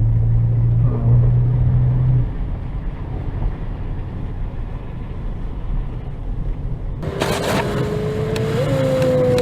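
Car driving with engine and road noise: a steady low hum that drops away about two seconds in, leaving a low rumble, then a brighter noise with a steady mid-pitched tone from about seven seconds in.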